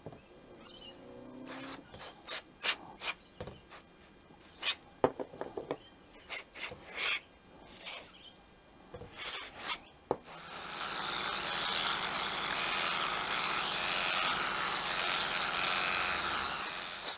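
Cleaning a Briggs & Stratton 500E's plastic carburetor parts: scattered small clicks and knocks as the parts are handled, then, about ten seconds in, a loud steady hiss of cleaning that lasts about seven seconds and stops abruptly.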